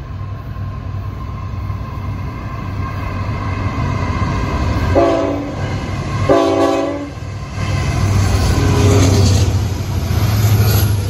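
Norfolk Southern ET44AC diesel-electric locomotive at the head of a loaded coal train, its engine and wheels rumbling louder as it comes up and passes close below. Its horn sounds twice about five seconds in: a short blast, then a longer one.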